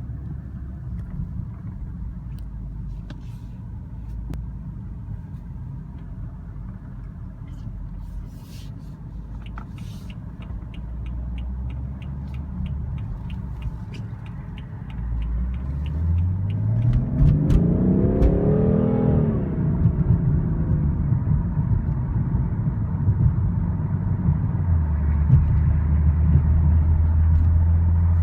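2016 BMW 340i xDrive's turbocharged inline-six, heard with its Active Sound Design coded to the M3/M4 sound, cruising with a low drone. A run of even ticks comes about halfway through. Then the engine pulls hard with rising pitch, drops at an upshift, and settles into a louder steady drone.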